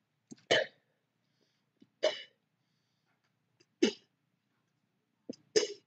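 A young woman gagging in four short throat spasms, roughly every one and a half to two seconds, in reaction to a foul-tasting jelly bean.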